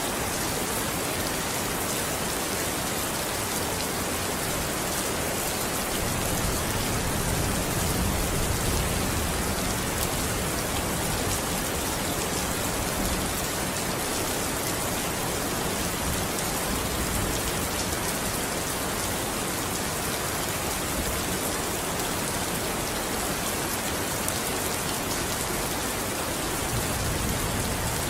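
Rain falling steadily, an even hiss of many drops. A low rumble swells up about six seconds in and again near the end.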